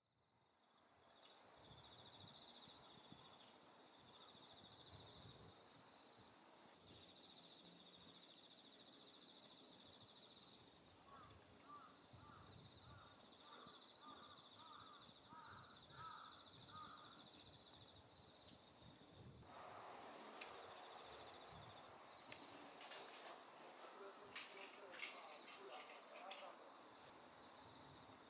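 Faint, steady chirring of crickets and other insects in a garden, pulsing without a break. A run of short lower chirps comes midway, and a soft hiss rises about twenty seconds in.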